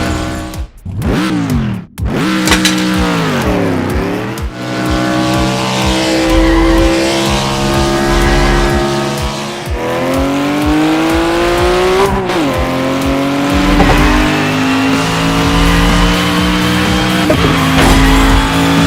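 Race car engine sound effects: engines running hard, the pitch climbing and then dropping sharply several times as at gear changes, with the sound cutting out briefly twice about a second in.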